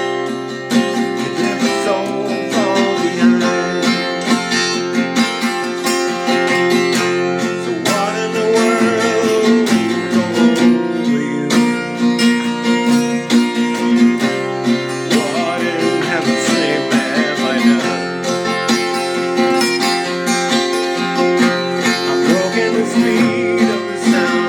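Acoustic guitar music: steady strummed chords with a wavering melody line bending above them.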